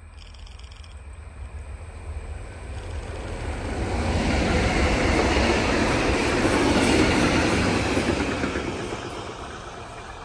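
A train passing on the line, its wheel and rail noise swelling to a peak in the middle and fading away.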